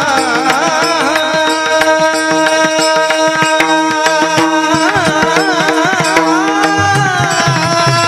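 Marathi Varkari kirtan music: a man's voice sings a long, wavering melodic line over a steady drone, with small hand cymbals (taal) clashing throughout. A barrel drum (pakhawaj) plays along, dropping back in the middle and coming in strongly near the end.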